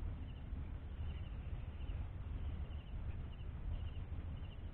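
Outdoor lakeside ambience: a steady low rumble of wind on the microphone, with faint high chirps repeating in quick little groups every half second or so.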